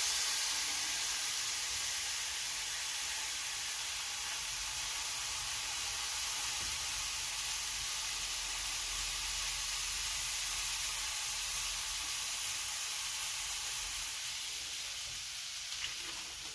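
Smash burger patty sizzling on a very hot skillet: a steady, even hiss, a little louder in the first second.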